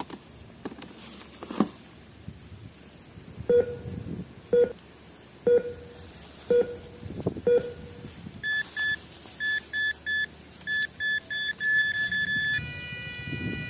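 Toy treasure-finder wand, a toy metal detector, beeping as it is swept over grass. Five slow, low beeps about a second apart give way to quicker, higher beeps, then to a steady tone near the end as it signals a find.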